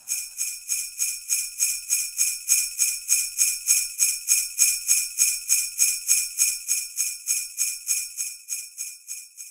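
Sleigh bells shaken in a steady rhythm, about four jingles a second, fading away near the end.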